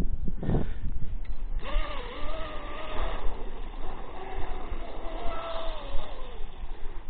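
The 6S brushless motor (SSS 3674, 2075 kV) and prop of a Genesis RC racing catamaran running on the water. It gives a whine that comes in about a second and a half in and rises and falls in pitch with the throttle, over a constant rumble of wind on the microphone.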